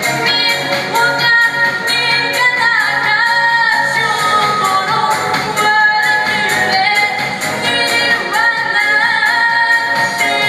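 A girl's solo voice singing a pop song in the Yakut (Sakha) language, with held, gliding notes over an instrumental backing with a steady beat.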